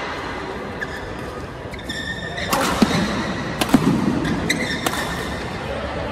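Badminton rackets striking the shuttlecock in a fast doubles rally, a few sharp hits under a second apart in the middle. Shoes squeak briefly on the court floor.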